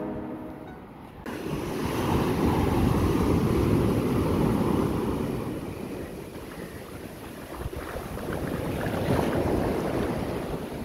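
Shallow surf washing in over sand and draining back, foaming close at hand. It swells twice, the first and longer surge early and another near the end. A piano tune fades out in the first second before the surf cuts in.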